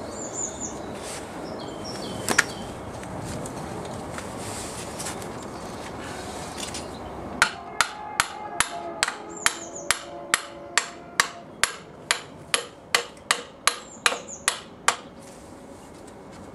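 Copper hammer striking the wishbone bolt to drive it through the shock absorber mount and wishbone of a Jaguar E-type rear suspension. After some handling noise and a single knock, about halfway in comes a run of about twenty steady blows, roughly two and a half a second, each with a short metallic ring. Birds chirp in the background.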